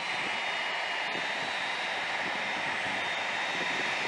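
Turbofan engines of a taxiing C-5 Galaxy running at low power: a steady jet rush with a faint high whine.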